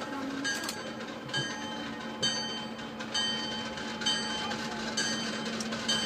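Train rolling slowly on the rails: a sharp metallic clack with a brief ringing tone about once a second as the wheels cross the rail joints, over a steady low hum that sets in about a second and a half in.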